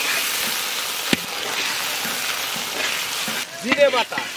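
Onions with ginger-garlic paste sizzling in hot mustard oil in a large metal kadai while a spatula stirs them, with one sharp clack of the spatula against the pan about a second in.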